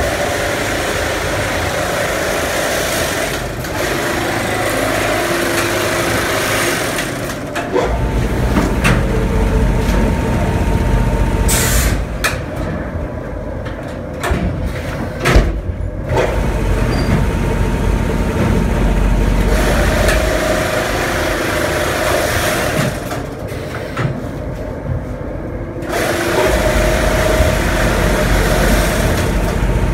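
Bühler flour bag-filling machine and bag conveyor running: loud steady machine noise that switches between long spells of hissing and spells of low rumbling as sacks are filled, with a few sharp clanks.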